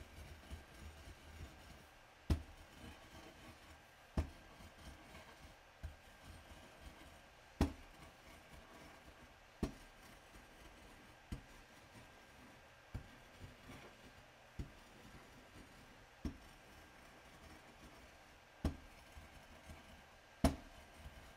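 A white pestle rubbing and grinding in circles through yellow powder on a glass slab, with a faint scraping and about a dozen sharp knocks of the pestle on the glass every second or two.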